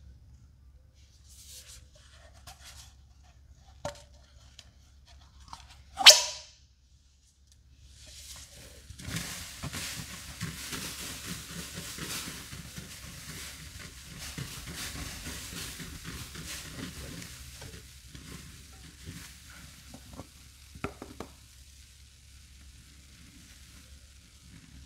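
Foam sponges loaded with green cleaning paste and Comet powder being squeezed. First scattered soft squeezes, then one sharp, loud squelch about six seconds in. From about eight seconds in comes some ten seconds of dense, wet crackling and squishing, which thins to occasional squeezes.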